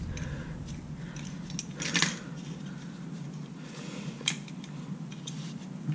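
Light metallic clicks and rattles from a clutch release bearing being picked up and handled, with a sharper clack about two seconds in and another just after four seconds.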